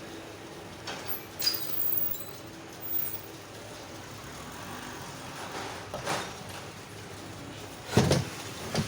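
A few knocks and clicks from handling parts or tools over a steady low background noise, the loudest a dull thump near the end.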